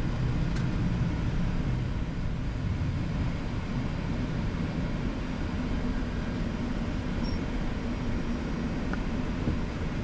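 Boeing 737-700 flight deck while taxiing after landing: a steady low rumble of the engines at idle and the airframe rolling, with a faint click about half a second in.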